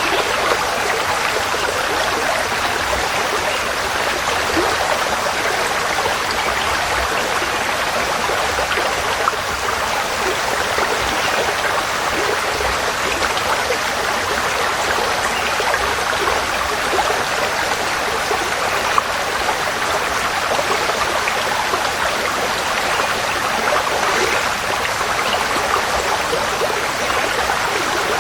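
Forest stream flowing over rocks: a steady babbling rush of water with fine splashing, even throughout.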